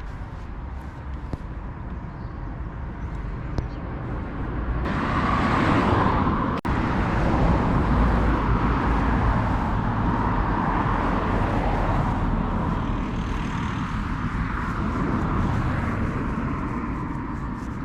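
A motor vehicle passing close by: road noise that swells suddenly about five seconds in, holds, then slowly fades away.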